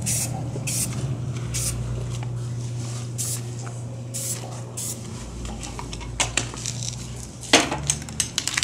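Aerosol spray-paint can hissing in about six short bursts over the first five seconds, then a few light clicks and one sharp click near the end.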